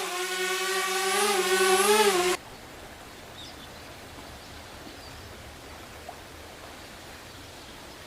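Small quadcopter drone's propellers buzzing steadily while it hovers, the pitch wavering slightly, then cut off abruptly about two and a half seconds in. A faint steady hiss follows.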